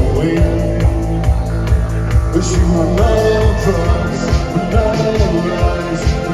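Live band playing a song with a steady, driving drum beat under bass and held melody lines.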